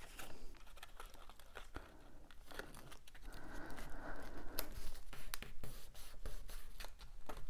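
Cardstock being folded and pressed flat by hands as glued tabs are pressed together: paper rubbing and rustling, with scattered small clicks and taps throughout.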